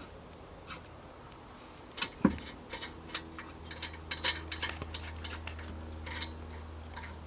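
Scattered metallic clicks and clanks of tools working on a car wheel during a tire change, with one loud knock about two seconds in. A low steady hum sets in partway through.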